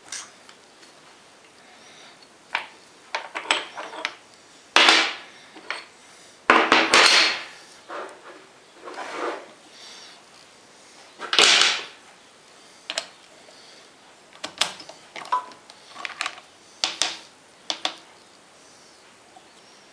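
Irregular metal clatters and scrapes from hands working on a stopped lathe, handling the tailstock drill, chuck and workpiece. The knocks and rattles come in uneven bunches.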